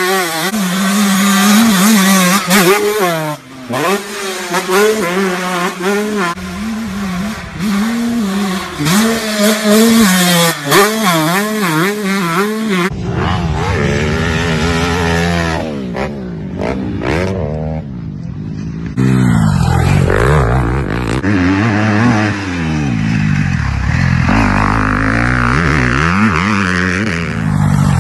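Dirt bike engines revving up and down again and again as the throttle is worked, in several short clips one after another. The sound changes abruptly about 13 and 19 seconds in.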